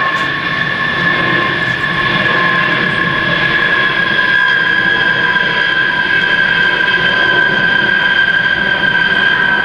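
Military aircraft flying over: a steady loud engine rush with a high whine on top that slowly falls in pitch.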